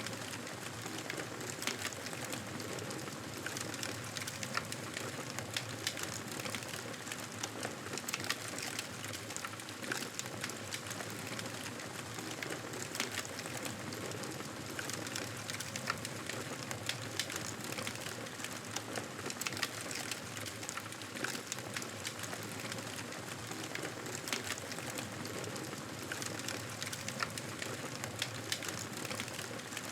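Wood fire crackling in a fireplace: a steady hiss dotted with frequent sharp pops and snaps.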